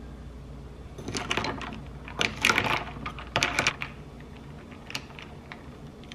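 Ice cubes clinking and rattling against a ribbed drinking glass as a straw stirs an iced coffee: a few bursts of clinks over about three seconds, then a few single clicks.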